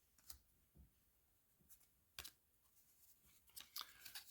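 Near silence with faint, scattered clicks and soft rustles of trading cards being handled and slid off a stack one at a time, a little busier near the end.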